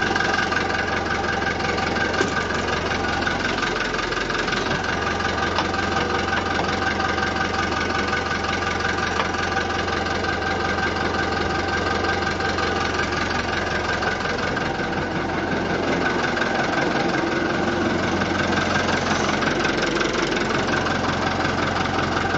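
Fiat 640 tractor's four-cylinder diesel engine running steadily at idle, its low note shifting briefly about 4 s in and again near the end.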